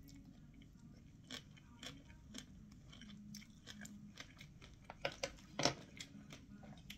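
A person chewing a mouthful of crunchy shredded green papaya and carrot salad, with soft crunches and mouth clicks and a few sharper clicks about five seconds in.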